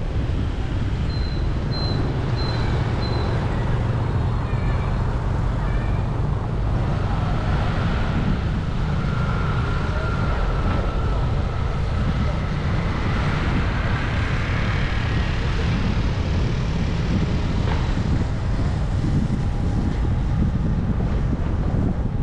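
Steady wind rumble on the microphone with road and traffic noise from a vehicle moving along a city street. A few short high pips sound about one to three seconds in.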